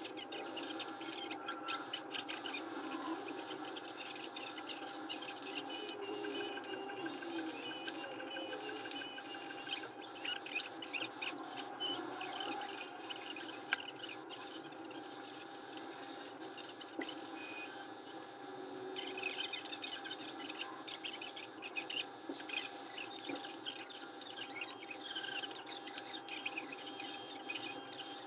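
Faint room tone: a steady hum with scattered light clicks and rustles.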